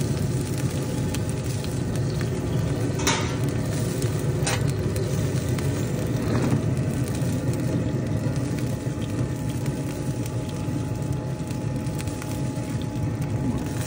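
Steady hum and hiss of a running smoker with the smoked chicken in it, with a few short clicks as the chicken on the grate is handled.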